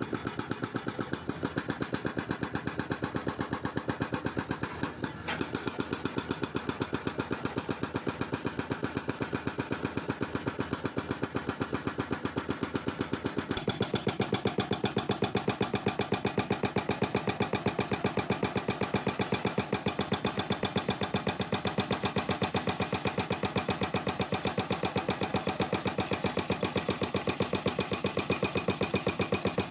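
Hydraulic breaker on a CAT 320C excavator hammering concrete in a rapid, even stream of blows, with the excavator's diesel engine running under it; the hammering gets louder about halfway through.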